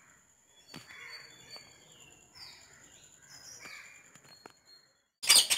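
Faint bird calls in the background over a thin, steady high whine. Near the end comes a short, loud, noisy burst, the loudest sound.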